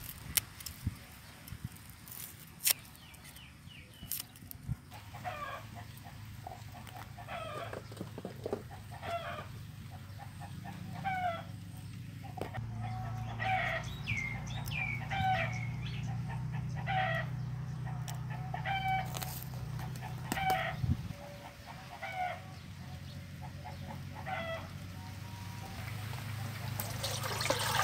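Chickens clucking in a run of short repeated calls, over a steady low hum, with a few sharp knocks in the first few seconds.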